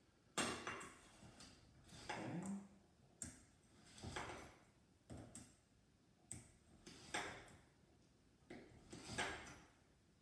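White sugar being measured out and tipped into the bowl of butter: about nine light knocks of the measuring cup or spoon, roughly one a second, each followed by a short grainy rustle of sugar.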